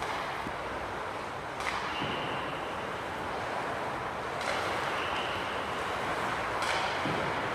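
Ice rink sound: a steady hum, with hockey skates scraping and cutting the ice in sharp hissy strokes about three times.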